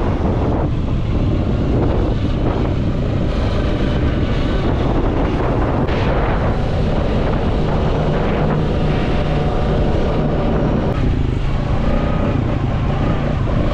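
Quad bike engine running steadily while riding, with wind buffeting the microphone.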